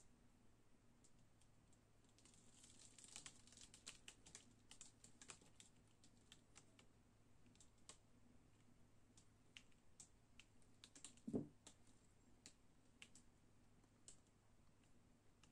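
Near silence with faint, scattered small clicks and ticks from handling a tilted canvas, densest early on, and one soft knock about eleven seconds in.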